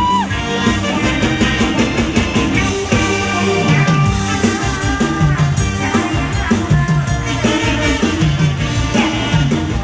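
Isan mor lam band music played for a tei dance segment: a steady dance beat under held melody notes that slide in pitch at their ends.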